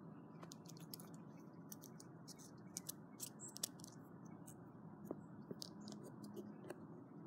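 Faint, irregular clicks and ticks from fingers handling a smashed earbud close to the phone's microphone, over a steady low hiss.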